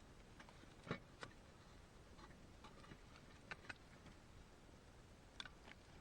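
Near silence broken by a few faint, sharp clicks and light knocks, the loudest about a second in, with a quick pair of clicks around the middle and another near the end.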